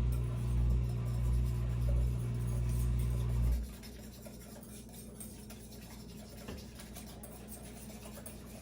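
Steady low electric hum of a kitchen appliance that cuts off suddenly about three and a half seconds in, followed by faint scratching and rubbing sounds.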